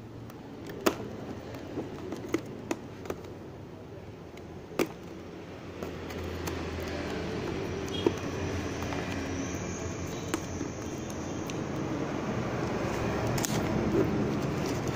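A cardboard product box is handled and turned in the hands: scattered light taps and clicks, then a steady rustle of card and packaging that builds from about six seconds in.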